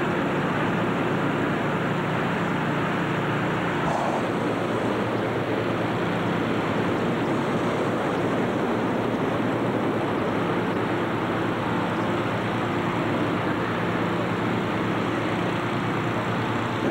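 Steady roar of many hot air balloons being inflated and heated at once, their burners and inflation fans running together, with a faint engine hum underneath, echoing in a huge hangar.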